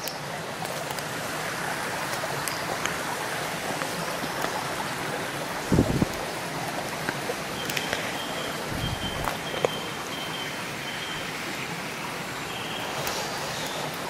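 Shallow woodland stream babbling over stones: a steady rush of running water, with a couple of dull thumps near the middle.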